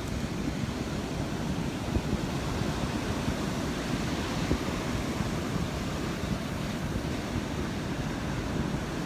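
Rough surf washing on the beach in a steady noise, with wind rumbling and buffeting on the microphone.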